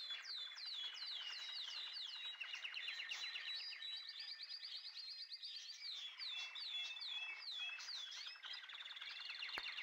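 Birds chirping and calling, fairly quiet: many short, high notes sliding downward, repeated quickly over a fast chatter of chirps.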